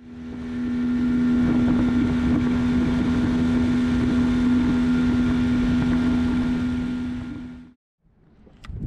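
A 40-horsepower outboard motor running at high speed with a steady drone, over wind and water rushing past the moving boat. It fades in over the first second and fades out a little before the end.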